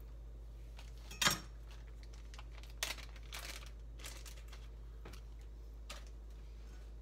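Kitchen knife knocking and scraping on a plastic cutting board in a few irregular strokes, the loudest about a second in, while ginger is prepared for mincing.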